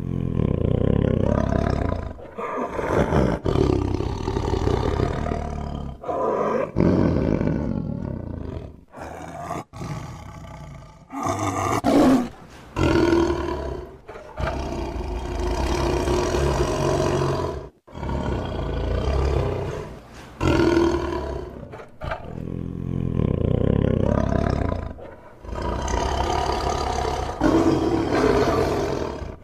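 Tiger roaring and growling: a string of long, deep calls a few seconds each, one after another, with short abrupt breaks between them.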